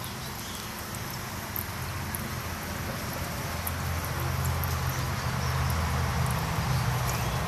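Water from a small paludarium waterfall trickling over rocks into a shallow pool, as a steady splashing hiss with faint scattered drips. A steady low hum runs underneath and grows louder about halfway through.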